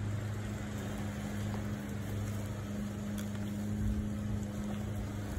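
A steady low mechanical hum with a faint background hiss, unchanging throughout.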